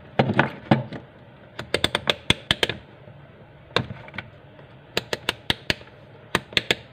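A digital multimeter's rotary selector dial being turned, clicking through its detents in quick runs of sharp clicks, several runs in a row.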